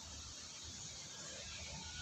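Faint outdoor background: a steady hiss and a low rumble, with a few faint, brief chirp-like tones.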